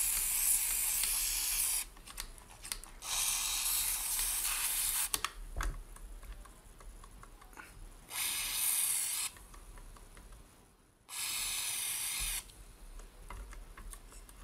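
Tri-Flow aerosol lubricant hissing out of a spray can's extension straw in four short bursts of one to three seconds each, with light clicks between them. The oil is being sprayed onto the stiff moving parts and oil holes of a vintage Singer 401a sewing machine.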